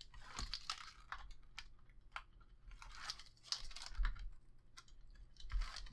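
Release liner being peeled off strips of double-sided adhesive tape on a chipboard cover, giving a run of soft, irregular crackles and ticks.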